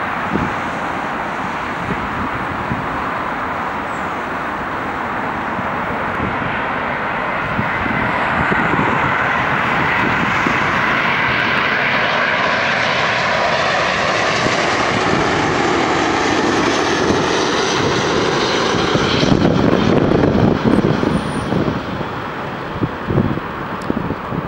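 Boeing 777 jet airliner on final approach, flying low overhead: a steady rush of jet engine noise that grows louder about a third of the way in, with a whine that falls in pitch as it passes, then a rougher low rumble near the end.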